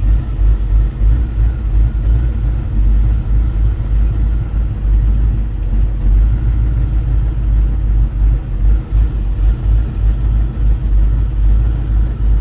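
2003 Ford 4.6-litre two-valve V8 vehicle running, a steady deep rumble whose loudness keeps dipping unevenly. The owner says the engine idles and revs fine but makes a noise and cuts in and out when driving.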